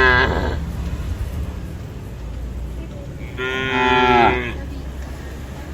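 Cattle mooing: the tail of one long call fades in the first half second, then a second moo comes about three and a half seconds in and lasts just over a second, over a steady low rumble.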